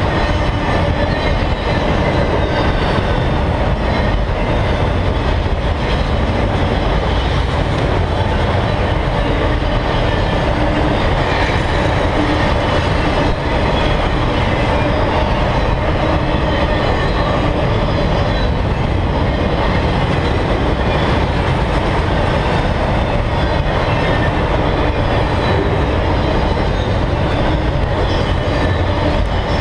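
Freight train of enclosed autorack cars rolling past at close range: steady, loud rumble and clatter of steel wheels on the rails.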